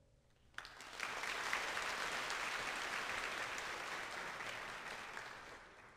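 Audience applauding, starting suddenly about half a second in, swelling within a second and holding steady, easing slightly near the end.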